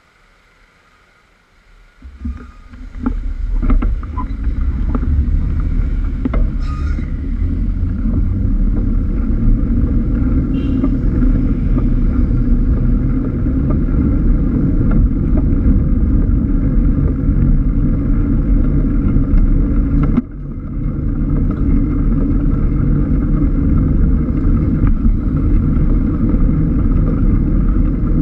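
Wind noise on a bicycle-mounted GoPro's microphone with road noise from the moving bike, a steady low rush that starts about two seconds in as the bike pulls away from a standstill. A few sharp clicks come as it sets off, and the noise dips briefly once later on.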